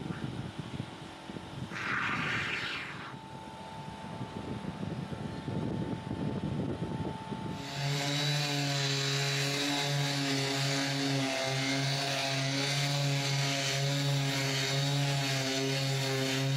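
Workshop noises with a short hiss about two seconds in. About halfway through, a machine motor starts a steady, even-pitched drone that runs on.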